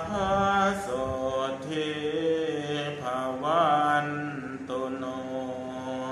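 Thai Buddhist morning chanting, voices drawing out long held notes in a slow chant, with a brief wavering turn of the melody about halfway through.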